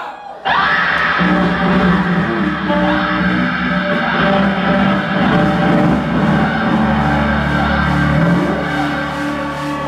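Live rock band playing loud, with distorted electric guitars. The sound drops out briefly at the start, then the full band comes back in and holds long, heavy low notes.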